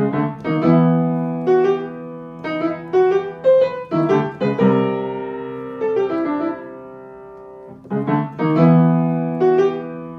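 Piano music: a melody of struck notes and chords that ring and fade, the phrase starting over about eight seconds in.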